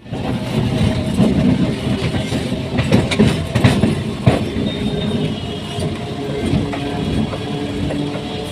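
Suburban electric local train running on the tracks: a steady rumble with a scatter of sharp wheel clicks over rail joints.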